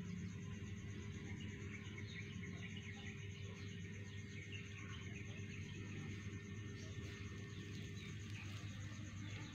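Outdoor ambience: an insect trilling in a steady pulsing rhythm, with scattered bird chirps over a low steady hum.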